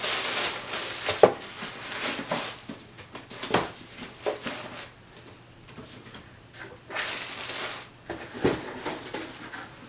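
Tissue paper rustling and crinkling in bursts as it is pulled open to unwrap books from a subscription box, with a few light knocks of the books and box being handled.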